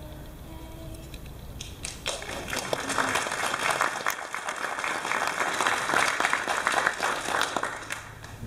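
The last sung note of a carol dies away, then an audience breaks into applause about two seconds in and claps steadily until near the end.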